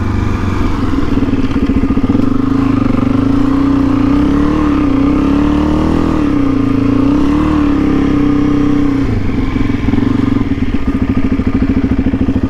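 Suzuki DR-Z400E single-cylinder four-stroke motorcycle engine running while riding on sand. Its pitch rises and falls a few times with the throttle, then about nine seconds in it drops to a slower, evenly pulsing beat as the rider eases off.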